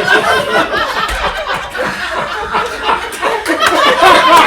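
Audience laughing loudly, many voices at once, swelling again near the end.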